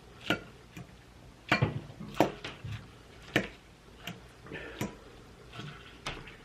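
Utensil clicking against a dish while eating: short, sharp clicks about once a second, irregularly spaced.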